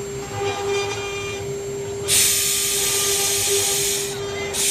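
CNC router spindle running with a steady high whine as its pointed engraving bit cuts grooves into a fibreboard sheet. A loud hissing cutting noise comes in about two seconds in and lasts about two seconds, with another short burst near the end.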